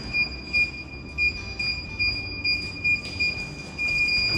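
Electronic keypad door lock sounding a steady high electronic tone, with louder beeps repeating about every half second as the code is keyed in.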